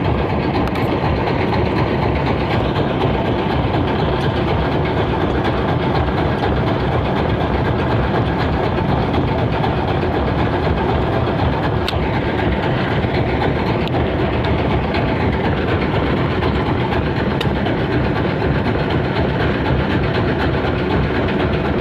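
Fishing boat's engine running steadily, a dense, even drone with no change in speed.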